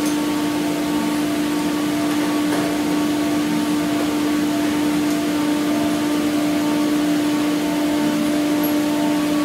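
Steady mechanical hum: one constant droning tone over an even hiss, unchanging throughout.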